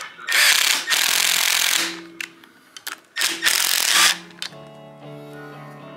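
Cordless impact wrench hammering in two runs of about a second and a half and a second, driving fasteners on an aluminium cylinder head. Music comes in about four and a half seconds in.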